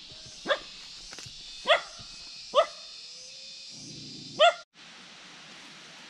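A dog barking: four short single barks at uneven intervals over a steady background hiss, the last about four and a half seconds in, after which the sound cuts off abruptly.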